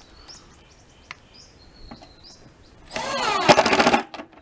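Power drill driving a screw, its motor whining up in pitch for about a second near the end. Birds chirp faintly before it.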